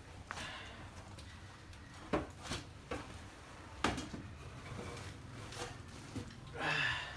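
Firewood being handled and pushed into a wood fire: about five separate sharp knocks of wood against wood and the metal frame, and a longer scraping clatter near the end.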